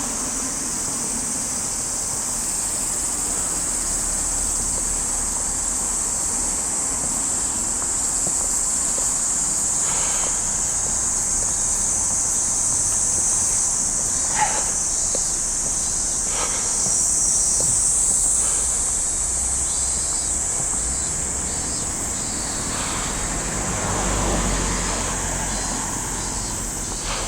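Cicadas in a steady, loud, high-pitched summer chorus, with a short sharp knock about halfway through.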